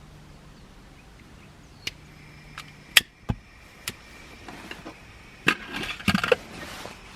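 Scattered sharp clicks and knocks of small tools and parts being handled, the loudest a couple of taps about three seconds in and a quick cluster of rattling knocks near the end.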